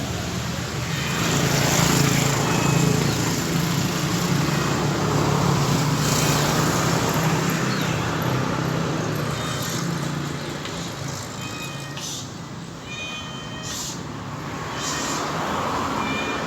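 Street traffic: a motor vehicle's engine running close by for the first ten seconds or so, over steady road noise, fading somewhat after that.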